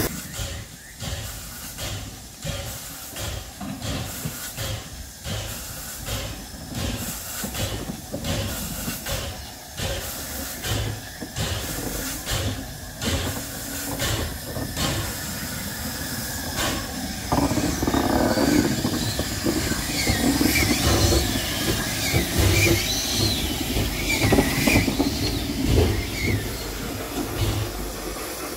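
Narrow-gauge Hudswell Clarke locomotive working along the track with a regular beat, about one and a half a second. About two-thirds of the way through it grows louder, with hiss and wavering high-pitched wheel squeal over the rails.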